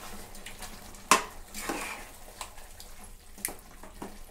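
Metal spatula stirring chicken and curd in a pressure cooker, scraping and knocking against the pot's metal sides. Several scrapes and clacks, the loudest about a second in.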